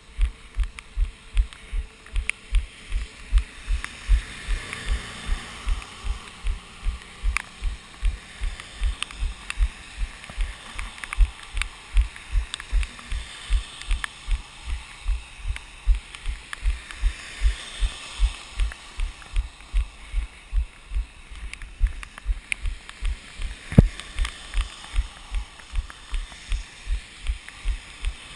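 A runner's footfalls heard through a GoPro action camera: dull low thuds at a steady running cadence of nearly three a second.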